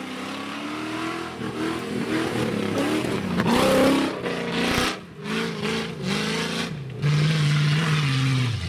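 Off-road trial vehicle's engine revving hard as it climbs a steep muddy slope, the revs rising and falling. It is loudest as it passes close by about four seconds in, then keeps pulling up the hill.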